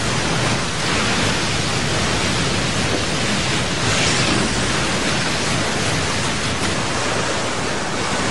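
Heavy storm surf: big waves breaking and seawater churning, a steady rushing noise that swells briefly about four seconds in.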